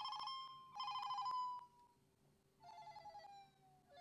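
Phone ringing with an incoming FaceTime call: a warbling two-tone ring sounds twice in quick succession, then twice more, quieter and lower in pitch, each ring sliding down in pitch as it fades.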